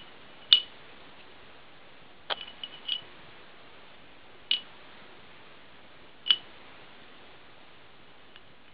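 Plastic variator rollers being set one at a time into the slots of a Honda Hobbit's aluminium TJT variator pulley: a handful of sharp clicks a second or two apart, each with a brief metallic ring.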